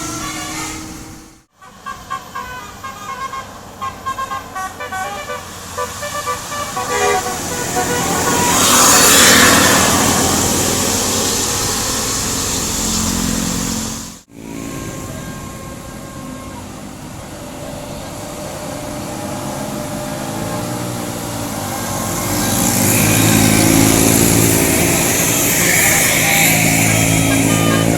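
Bus telolet horn, a multi-trumpet horn, sounding a melody of short stepped notes over vehicle and traffic noise. The sound drops out briefly twice.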